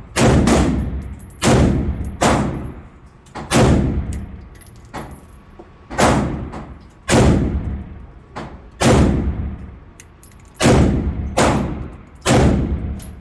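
Daniel Defense MK18 short-barrelled 5.56 rifle firing in slow semi-automatic: about a dozen sharp, echoing shots, roughly one a second with uneven spacing.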